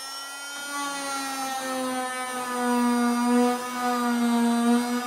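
Corded oscillating multi-tool with a triangular sanding pad running steadily against the edge of a wooden cupboard door, a steady buzzing whine that gets gradually louder. It is taking down the door's edge where it rubs against the frame.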